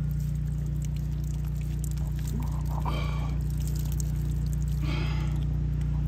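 Muddy water pouring and trickling out of a hole in a geode, over a steady low engine hum.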